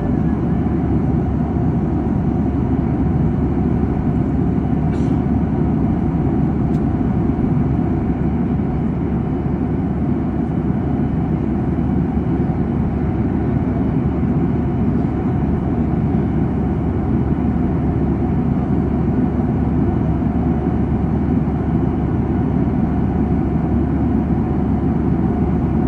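Steady cabin noise of a jet airliner in flight, heard from a window seat by the wing: a dense, low, unchanging drone of engines and airflow.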